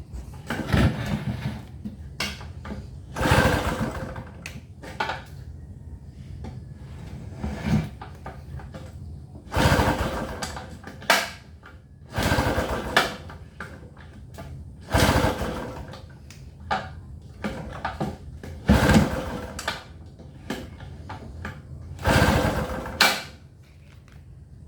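Gasoline inverter generator being pull-started by its recoil starter again and again, each pull a short rasping crank of the engine, roughly every two to three seconds; the engine never catches, so the generator won't start.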